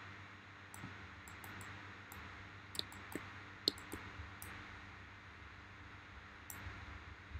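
Computer mouse clicking: about a dozen short, sharp clicks at irregular intervals, several coming close together around the middle, over a faint steady hiss.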